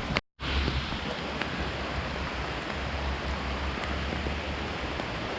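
Steady wash of heavy rain mixed with the rush of a high-running, flooded creek, with a low wind rumble on the microphone. The sound cuts out for an instant just after the start.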